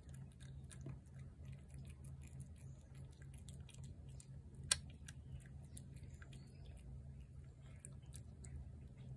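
Cat chewing food from a ceramic plate: a run of small, irregular wet clicks of eating, with one sharper click about four and a half seconds in, over a steady low hum.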